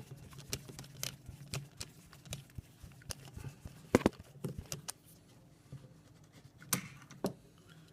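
Scattered small clicks and taps of screws and a screwdriver being handled against the plastic housing of a PAG PL96e battery while its link connector is screwed back together. The loudest tap comes about four seconds in, with two more near the end.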